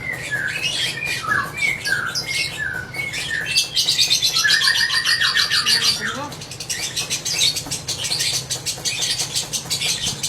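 Lovebird chattering in its long 'ngekek' song: a run of short falling chirps about two a second, then a dense, fast rattling trill from about four seconds in. After a brief rising note it goes on as quicker, higher chatter.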